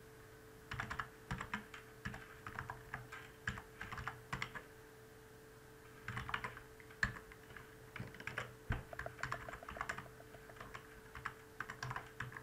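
Computer keyboard typing: two spells of quick keystrokes with a pause of about a second and a half between them, over a faint steady hum.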